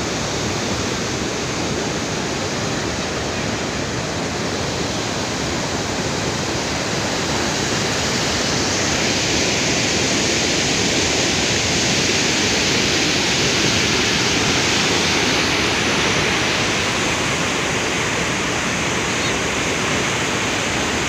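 Floodwater from heavy rain rushing in a loud, steady rush. It gets louder and brighter about eight seconds in, then eases slightly near the end.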